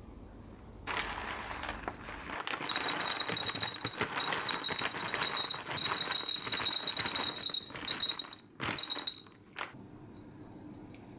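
Dry dog-food kibble poured into a bowl, a dense rattling patter of pellets hitting it, with a steady high ring through much of it. It stops at about nine and a half seconds after a few last separate rattles.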